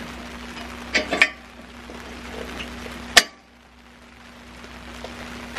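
Light metallic clicks and clinks of snow-plow hydraulic fittings being handled: two close together about a second in, and one sharper click just after three seconds. A faint steady hum underneath cuts off at the last click.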